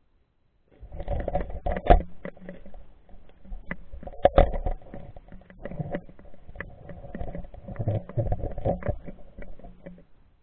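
Muffled, irregular knocks, clicks and rumbling of water against an action camera's waterproof housing as it moves under water. The sound starts about a second in.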